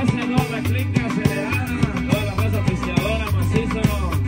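Live band playing amplified music with accordion, electric bass, guitar and drum kit over a steady drum beat, with a man singing.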